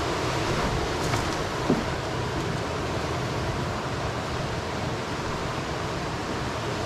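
Steady rushing of river rapids, a continuous even roar of moving water.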